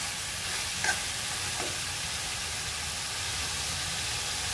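Chicken, tomato and spring onion sizzling steadily in a hot wok while being stir-fried, with the metal ladle clinking against the pan twice in the first two seconds.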